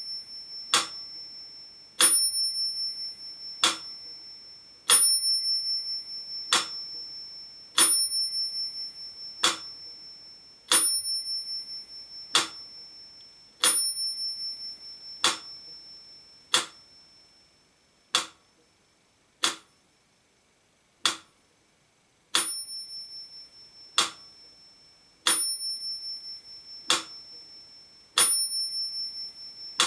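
Mechanical pyramid metronome ticking at 40 beats a minute, one sharp tick about every one and a half seconds. Its bell rings and fades on every second tick. About two-thirds of the way through, the bell stays silent for a couple of beats before resuming.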